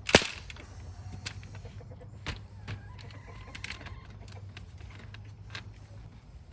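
A sharp knock, then scattered light clicks and taps of screws and hardware being handled on a wooden chicken coop, with chickens faintly clucking.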